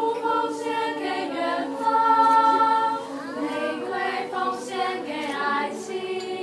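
A choir singing a cappella: several voices in harmony, holding long notes, with the strongest sustained chord about two seconds in.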